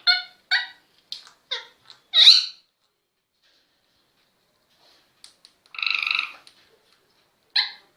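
Parrot calling: a quick run of short, squeaky calls, a pause of about three seconds, one longer call about six seconds in, then more short calls near the end.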